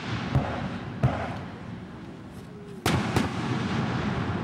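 Aerial fireworks shells bursting: two duller thumps about half a second apart in the first second, then two loud sharp bangs close together a little under three seconds in, each trailing off in an echo.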